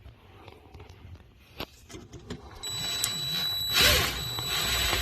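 A cordless screw gun runs, driving a screw, from about halfway in, with a steady high motor whine, after a few light clicks of handling.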